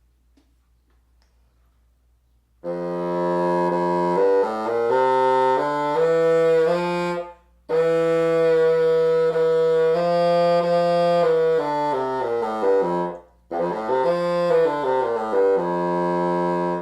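Bassoon played in three short phrases of notes moving up and down, starting a couple of seconds in, as a pitch test of a flat reed whose wires have just been closed to raise its pitch.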